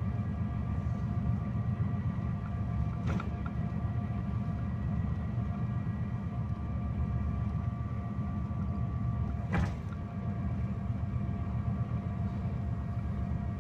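Steady low engine and road rumble inside a moving sleeper coach's cabin, with a faint steady whine over it. Two short clicks or knocks sound, about three seconds in and again near ten seconds in.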